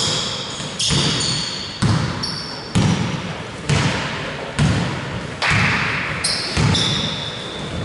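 A basketball dribbled on a hardwood gym floor: sharp bounces about once a second, each ringing briefly in the hall, with short high squeaks of sneakers between them.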